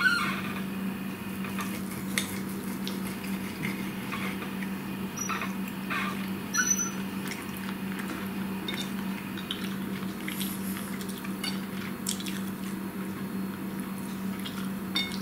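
Eating at a table: a fork clinking now and then on a plate, with soft wet mouth and food sounds, over a steady low hum.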